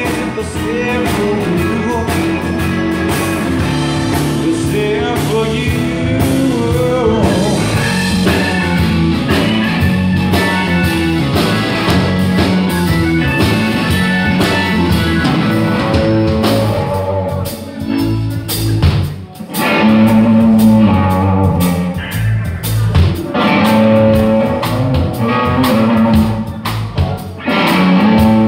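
Live blues-rock band playing, with electric guitar and Hammond organ over bass and drums. The music drops back briefly a little past the middle, then comes in loud again.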